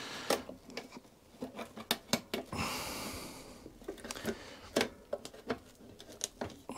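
Scattered small clicks and knocks as the grass flap's bar and torsion spring are handled and worked into place on a Hayter Harrier 41 lawnmower, with a brief hiss about two and a half seconds in.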